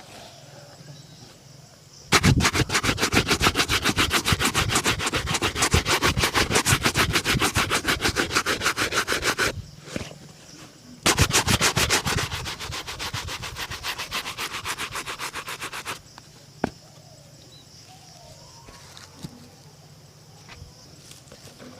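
A shoe being rapidly buffed with a brush in quick back-and-forth strokes, several a second. The strokes come in two bouts, the first about seven seconds long, then a brief pause, then a second bout that fades and stops near three quarters of the way through.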